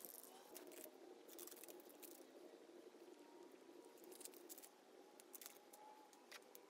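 Near silence: faint room tone with a few brief soft clicks and rustles.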